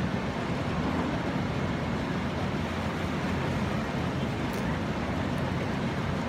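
Steady rush of churning water in a log flume ride's channel as a boat glides through it.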